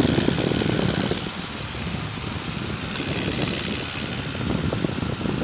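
De Havilland Tiger Moth biplane's four-cylinder Gipsy Major engine and propeller running steadily in flight, heard from the open cockpit with a rush of wind over the microphone that swells and eases.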